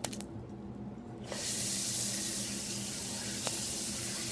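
A sharp click, then about a second in a sink faucet is turned on and water runs steadily into the sink.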